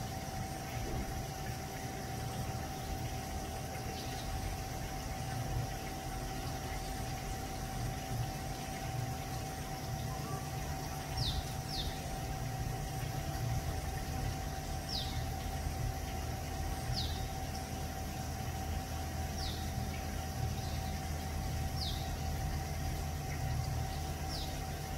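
Steady low rumble with a faint steady hum over it. From about halfway through, a bird repeats a short high chirp that slides downward, roughly every two seconds.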